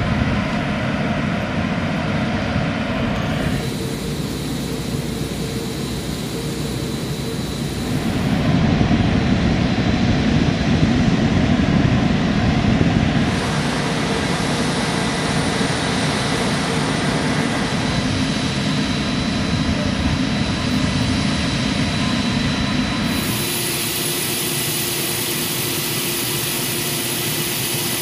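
Steady jet aircraft noise on a flight line, a continuous engine rush with faint steady whines. Its character changes abruptly several times, at about 3.5, 8.5, 13 and 23 seconds in, as different recordings cut in.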